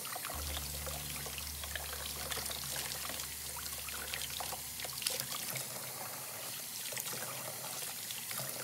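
Tap water running from a kitchen faucet, splashing over a wet puppy held under the stream and pattering into a plastic tub in the sink, with a steady pour and many small splashes.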